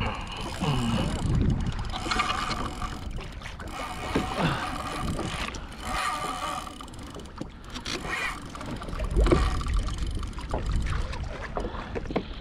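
Water lapping and splashing against the hull of a Hobie Revolution 13 pedal kayak on open ocean, with wind on the microphone. Brief high whining squeaks come and go.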